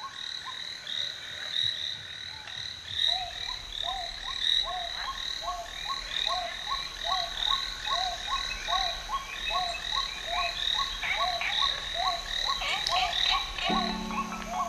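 A chorus of frogs calling: many short croaks that rise and fall, about two a second, over a steady higher chirring. Low held notes of music come in about a second before the end.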